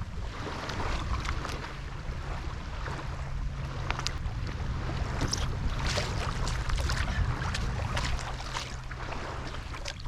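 Wind buffeting the microphone in a steady low rumble, over irregular small splashes and lapping of shallow seawater.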